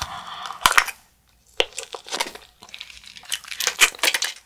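Biting and chewing soft gummy jelly candy, heard as bursts of crackly clicks and crinkling, with a brief pause about a second in.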